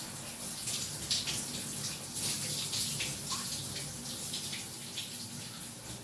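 Shower water running from a showerhead: a steady hiss of falling water with irregular spatters.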